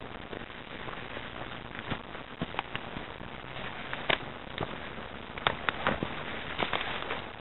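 Footsteps crunching through dry leaf litter and twigs, irregular sharp crackles over a steady hiss.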